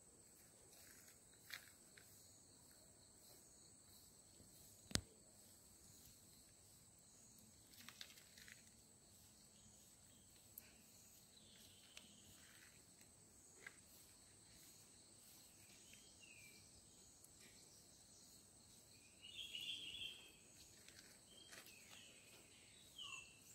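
Near silence: a faint steady high-pitched insect trill, with a few soft clicks and rustles of flower stems being picked into a leaf.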